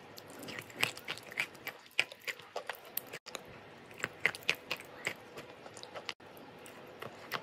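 Close-up biting and chewing of a piece of chalk coated in a brown paste: sharp, irregular crunches and crackles as the chalk breaks between the teeth. The sound cuts out briefly twice.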